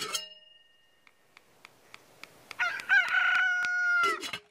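A brief ringing hit, then a rooster crowing once from about two and a half seconds in: a few quick rising notes that settle into one long held note, ending with a short burst near the end.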